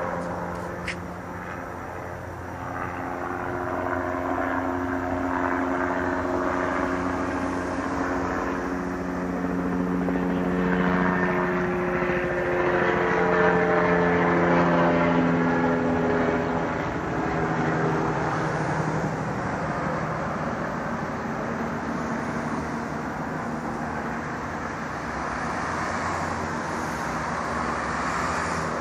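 Police helicopter flying overhead, its engine and rotor drone growing louder to a peak a little before the middle as it passes nearest, its tone shifting in pitch, then easing off as it moves away.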